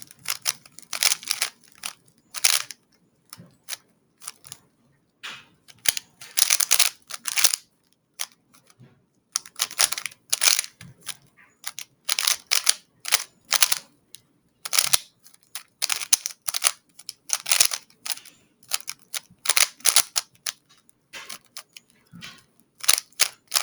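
A plastic speedcube being turned fast during a timed solve: rapid clicking and clacking of the layers in irregular flurries, broken by brief pauses.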